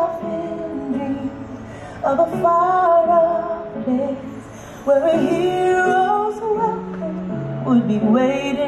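Fireworks-show soundtrack music: a singing voice in gliding phrases over held low notes, each new phrase starting about every three seconds.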